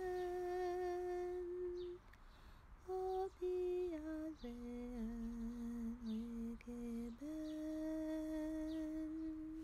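A woman's voice humming a slow tune in long held notes, with a short break about two seconds in and a long final note from about seven seconds on.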